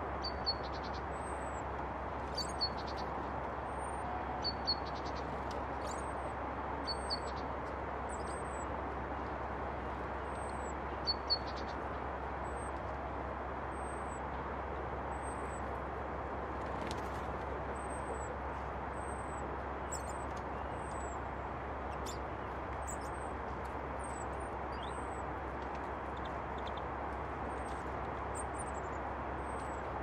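Small songbirds calling: a thin, high call note repeated about once a second throughout, and louder paired chirps every couple of seconds in the first dozen seconds, over a steady rushing background noise.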